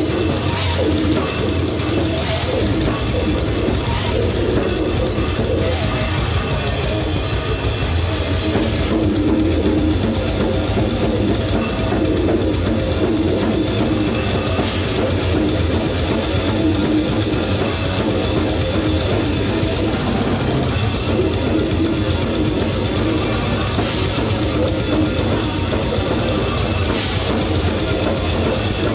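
Death metal/goregrind band playing live and loud: distorted electric guitars, bass guitar and a Pearl drum kit, going steadily without a break.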